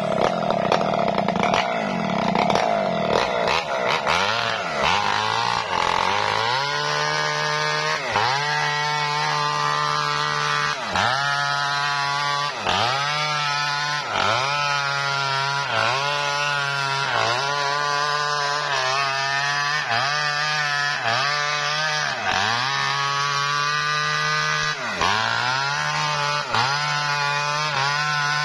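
Maestro mini chainsaw ripping a leucaena log lengthwise into planks, its engine held at high revs. For the first few seconds the revs wander. After that the engine note sags under the load of the cut and recovers about every second and a half.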